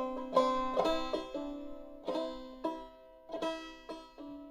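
Five-string banjo played clawhammer style in open eCGCD tuning, a slow phrase of single notes and brushed strokes on open strings with a pull-off, each stroke ringing and dying away before the next.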